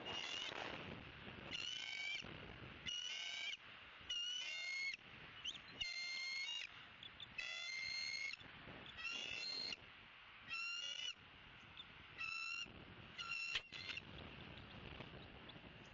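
Bald eagle giving a series of about ten high, piping calls, one every second or so, which stop about 14 seconds in. A steady rush of wind lies beneath them.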